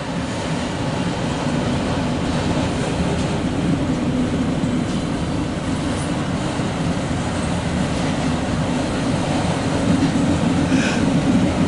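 Empty autorack cars of a CSX freight train rolling steadily past, heard from inside a car, with a brief squeal from the wheels near the end.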